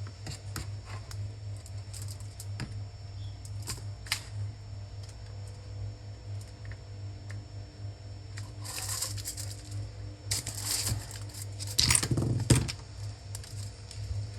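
Small tools clicking and tapping during hand-soldering of a chip's pins on a circuit board, over a steady low hum. Three louder rustling bursts come about 9, 10 and 12 seconds in.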